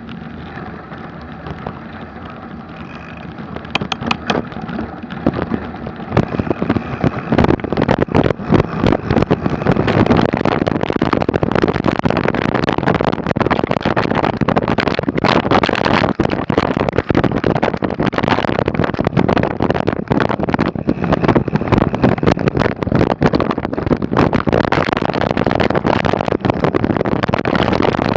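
Mountain bike riding down a rough trail: dense rattling and knocking from the bike over bumps, mixed with wind on the microphone. It grows louder about six to eight seconds in and stays loud.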